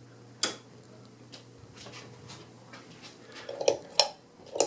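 Sharp metallic clicks and knocks from the mechanism of a vintage Emerson ceiling fan being worked by hand: one click about half a second in, then a quick cluster near the end. A low steady hum from the fan runs under it and cuts off about a second and a half in.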